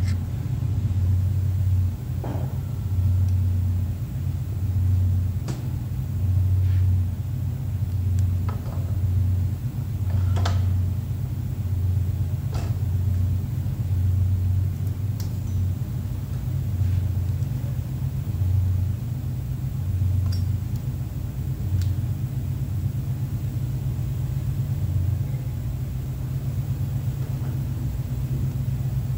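A steady low machine hum with a slow, uneven throb, over which come scattered light clicks and knocks of hands fitting an alternator onto a test bench's mounting bracket.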